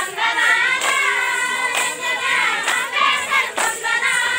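Bathukamma folk song sung by a group of voices, with a sharp beat striking about once a second under the singing.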